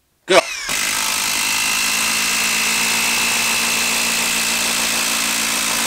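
Milwaukee 2850-20 brushless 1/4-inch hex impact driver driving a 10-inch TimberLok screw into dense log wood. It starts about half a second in and hammers steadily at full trigger, a dense, even rattle of rapid impacts.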